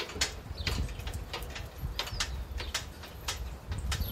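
A small motorcycle camping trailer being pulled by hand across concrete: footsteps and frequent sharp clicks and rattles, about three a second and irregular, over a low rumble.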